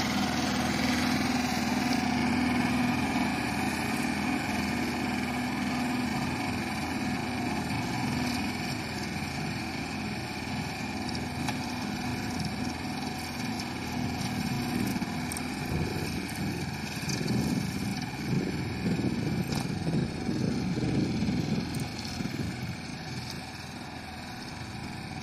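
Tractor engine running steadily under load, driving a rear-mounted single-rotor rotary slasher through tall grass. It gets rougher and louder for a stretch in the second half, then fainter near the end as the tractor moves away.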